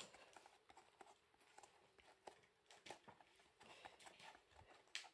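Near silence, with faint scattered taps and paper rustles as fingers press a glued paper doily onto a cardboard egg carton; the sharpest tap comes near the end.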